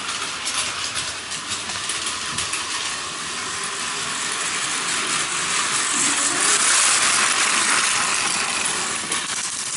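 Plarail toy trains running on plastic track: the battery motors whir and the wheels clatter over the track joints, with a few light clicks in the first two seconds. It grows louder about six to eight seconds in as the 0 series Shinkansen passes close.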